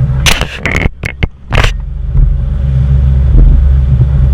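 Motorboat running underway: a steady low engine and wind rumble, broken early on by a handful of sharp clicks and knocks.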